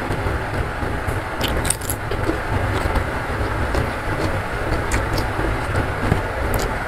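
Close-up eating by hand: chewing, with a few small clicks as food is picked up from the tray, over a steady rumbling background noise.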